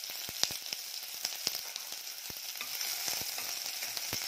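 Freshly added sliced onions sizzling in hot oil in a steel pressure cooker, a steady hiss with scattered crackling pops. A steel spoon stirs them near the end.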